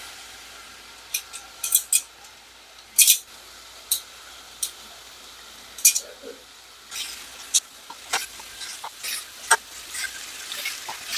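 Seasoned steak bites frying in hot oil in a pan: a faint steady sizzle with scattered sharp pops and crackles, coming more often in the last few seconds.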